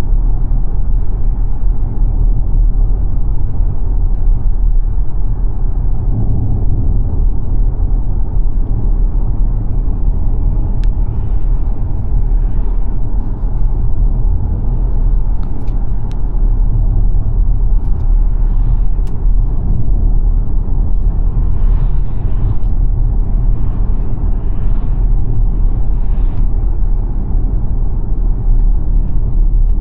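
Road and tyre noise of the XPENG G9 electric SUV on the move: a loud, steady low rumble with no engine note, and a few faint ticks and soft swells over it in the second half.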